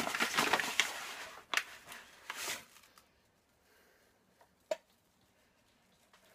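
Paper flour bag crinkling and rustling as rye flour is shaken out of it, with sharp crackles, for about three seconds. Then it goes quiet, with one light sharp knock nearly two seconds later.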